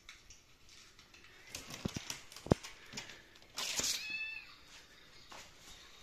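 Recorded kitten meowing played from a laptop speaker, with one meow about four seconds in just after a short noisy burst. Before it come a few sharp knocks, the loudest about two and a half seconds in.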